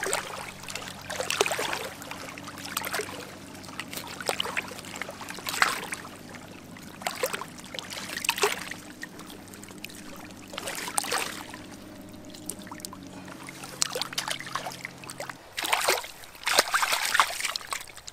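Shallow river water splashing and trickling irregularly around hands cleaning a freshly gutted bass, with denser splashing near the end as the fish is rinsed. A faint steady low hum runs underneath and stops about three-quarters of the way through.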